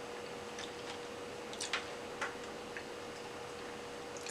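Faint mouth clicks and wet smacks of someone chewing sushi, a few scattered clicks about a second and a half to three seconds in, over a faint steady hum.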